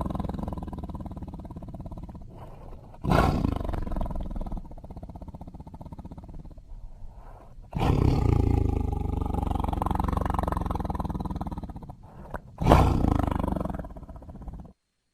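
Tiger roaring: a roar fading out, then three fresh roars that each start suddenly and die away, the longest lasting about four seconds.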